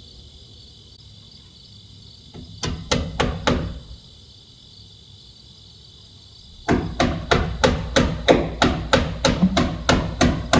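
A hand hammer driving nails into wooden roof framing: four quick blows, then, about two-thirds of the way in, a steady run of blows at about three a second.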